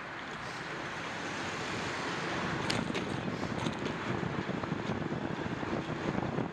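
Wind rushing over the microphone of a riding cyclist's camera, building as the bicycle gathers speed, with a few sharp clicks and rattles about three seconds in.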